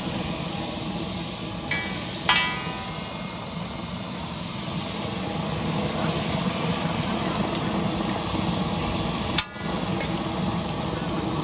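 Steady street-stall and traffic background noise, with two short ringing metallic clinks a couple of seconds in. The sound drops out for a moment near the end.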